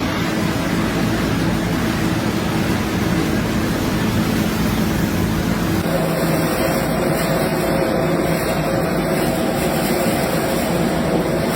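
Factory machinery running steadily with a continuous hum and noise; the hum's tones change abruptly about six seconds in, as a different machine is heard.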